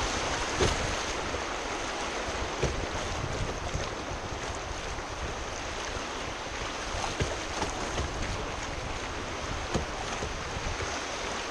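River rapids rushing steadily around a kayak running shallow whitewater, with a few sharp splashes along the way.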